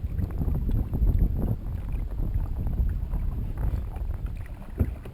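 Wind rumbling on the microphone over the water sounds of a canoe being paddled, with a single knock near the end.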